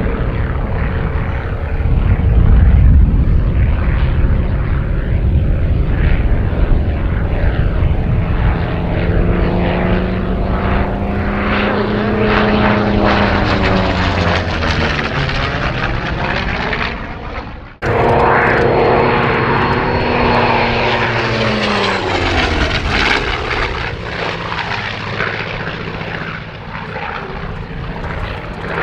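Chance Vought F4U-5NL Corsair's Pratt & Whitney R-2800 Double Wasp radial engine and propeller in a display flight overhead, the engine note falling in pitch as the aircraft passes. About 18 s in the sound cuts off for an instant and resumes, then the pitch drops again on a second pass.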